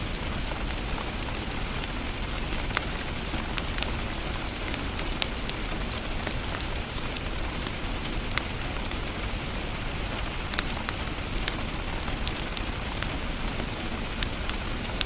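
Wood fire burning in a fireplace: a steady hiss with frequent sharp, irregular crackles and pops.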